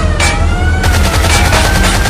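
Vintage car chase sound effect: rapid gunfire in quick bursts over a steady low engine rumble, with a high tone that slides up and down.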